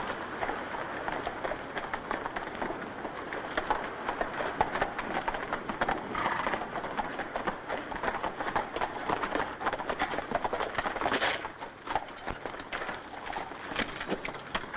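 Horses galloping: a fast, steady clatter of hoofbeats.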